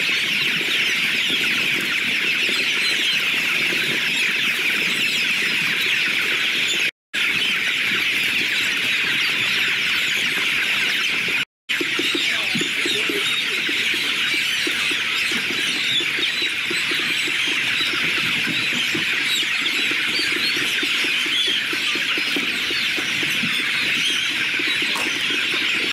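A large flock of young chickens peeping and cheeping together in a dense, continuous high chorus, which breaks off for an instant twice, about seven and eleven and a half seconds in.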